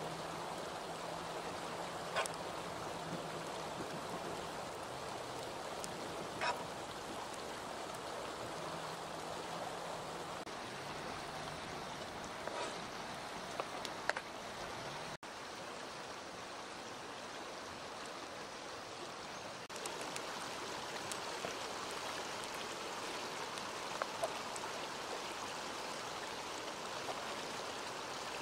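Fast shallow river rushing steadily, with a few sharp knocks of a cleaver and knife chopping on a plastic cutting board.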